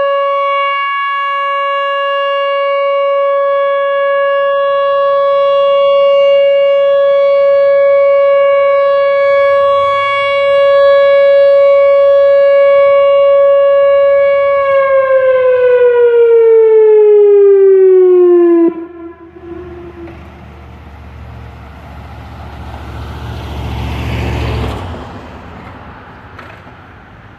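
Whelen WPS-4004 electronic outdoor warning siren sounding a steady alert tone, then winding down in pitch over about four seconds and cutting off abruptly. A vehicle then passes, its noise swelling and fading.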